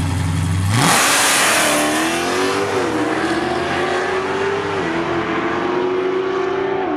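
Drag cars at full-throttle launch, a Hellcat V8 against an old-school RS. The engine note jumps sharply about a second in, then holds high with short dips in pitch at each gear shift, three shifts in all.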